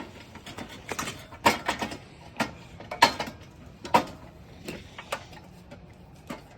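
Scattered light knocks and clicks of metal parts being handled and shifted, about a dozen irregular taps with no steady rhythm.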